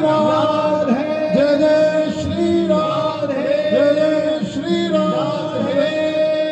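Men singing a Krishna devotional chant (kirtan) through microphones, the melody rising and falling in short phrases over a steady held note.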